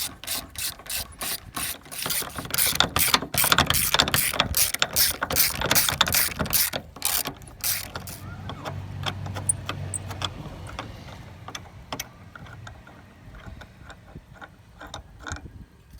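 A 3/8-inch drive ratchet turning a T50 Torx bit on a Jeep door-hinge bolt, its pawl clicking in an even run. The clicks come faster and louder about two seconds in and stop about eight seconds in, leaving a few faint scattered ticks.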